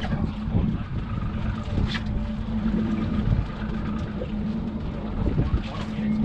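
Outboard motors idling steadily, a constant low hum, with wind buffeting the microphone.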